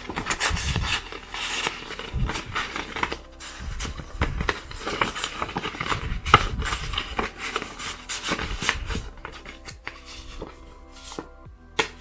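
Paper envelopes and a printed card rustling and sliding against each other as they are handled, with one sharper snap about halfway through, over background music.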